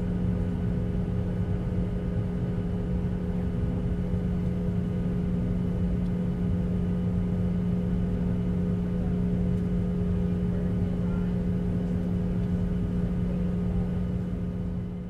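Jet airliner cabin noise in flight: the steady drone of the engines and rushing air, with a constant low hum. It fades out at the very end.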